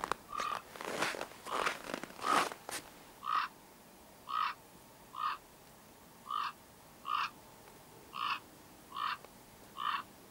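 Footsteps in cold, dry snow: a few crunching steps, then slow steps about one a second, each one giving a short squeak.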